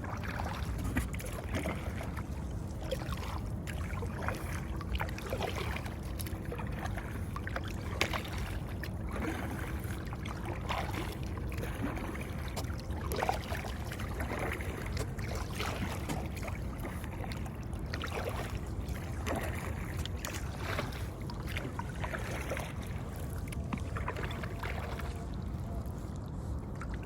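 Canoe paddling on open water: irregular splashes and drips of the paddle entering and leaving the water, over a steady low rumble.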